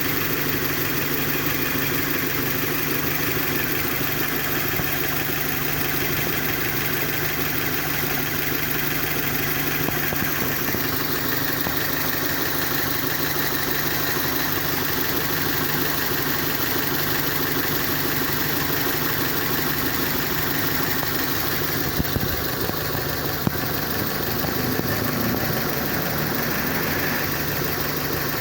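Kia Sportage engine idling steadily with a constant low hum, the vehicle's unexplained noise under investigation. Two brief sharp clicks sound about three-quarters of the way through.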